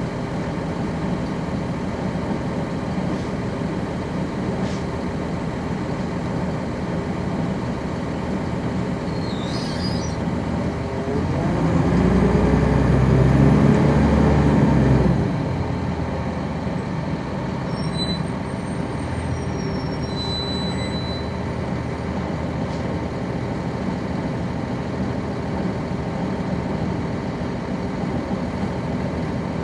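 Cabin sound of a 1999 NovaBus RTS transit bus, its Cummins ISC diesel engine and ZF automatic transmission running steadily. About eleven seconds in the engine grows louder and rises in pitch for a few seconds, then drops back suddenly.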